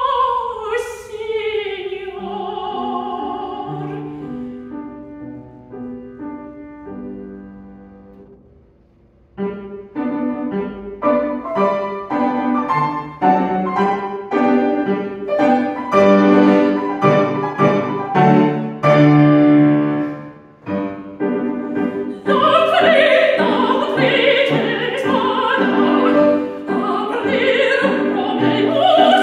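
Mezzo-soprano singing an operatic aria with grand piano accompaniment. She holds a note at the start, then the piano plays alone and dies away to a hush about nine seconds in. The piano comes back with loud, full chords, and her voice re-enters about twenty-two seconds in.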